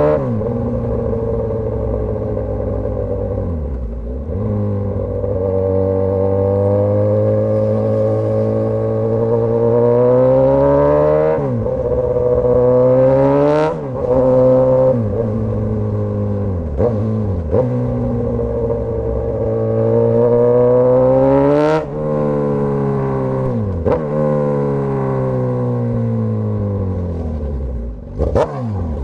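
Suzuki GSX-S1000's inline-four engine through a straight-piped exhaust, its note rising and falling as the bike pulls through the gears and slows, with several short, sharp revs along the way.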